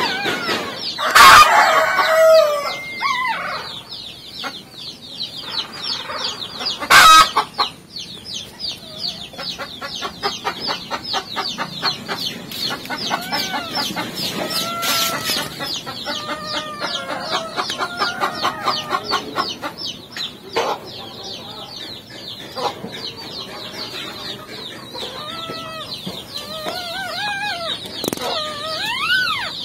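Many short squeaky calls that rise and fall, repeated through the whole stretch, over a fast, high chittering. A longer rising-and-falling call comes near the end. Two sharp knocks sound, one about a second in and one about seven seconds in.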